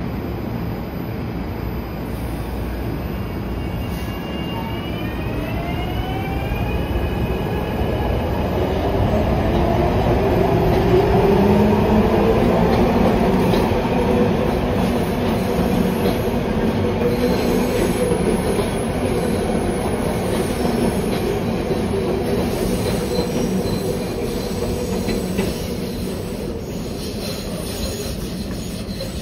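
SEPTA Market–Frankford Line train pulling away. Its motors give a whine that rises in pitch as it picks up speed, over steady wheel-on-rail noise. It is loudest about halfway through, then eases off slightly.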